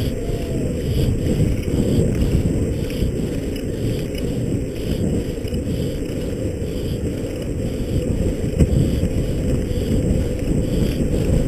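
Steady low rumble with wind noise on the microphone and a constant rattling texture, the sound of a fast ride over rough ground.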